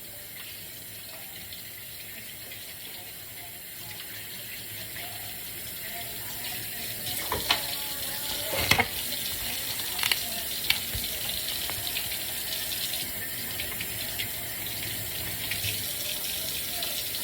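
Kitchen tap running into the sink. The water gets louder partway through, and there are a few knocks and clatters in the middle.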